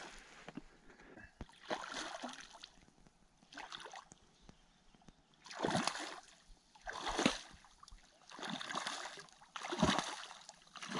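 A hooked Snake River fine-spotted cutthroat trout splashing and thrashing at the lake surface as it is brought to a landing net, in a series of short splashes a second or two apart.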